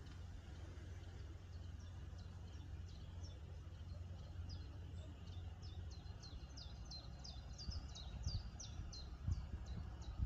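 A songbird in the bankside trees or reeds sings a long run of short, high, quickly repeated chirps that grow busier in the second half, over a faint low rumble.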